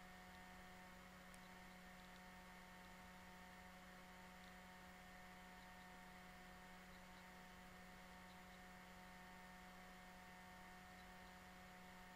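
Near silence: a faint, steady electrical hum with a few constant tones and light hiss.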